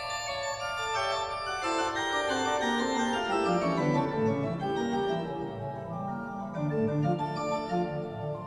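Background music on an organ-like keyboard: sustained chords, with a line of notes stepping steadily down into the bass over the first few seconds.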